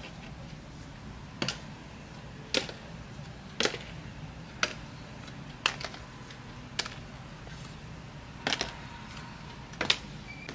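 A row of short, sharp clicks and taps, about one a second and a pair near the end, as small objects are handled and set down while treat boxes are packed, over a low steady hum.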